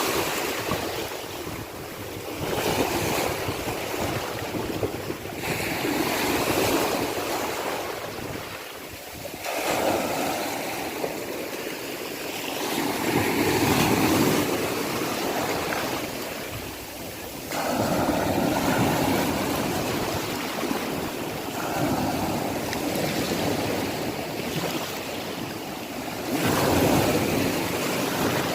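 Sea waves washing in and out, the surf swelling and ebbing every few seconds, with some wind noise on the microphone.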